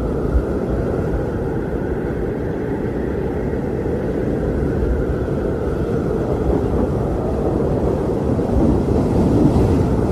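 Strong wind blowing, a steady deep rush of noise that swells slightly near the end.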